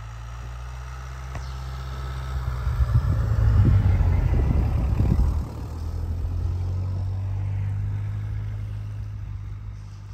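An SUV towing a caravan drives slowly past through deep snow, its engine running steadily under load. It gets louder as the car passes close, about three to five seconds in, then eases off as the caravan rolls by.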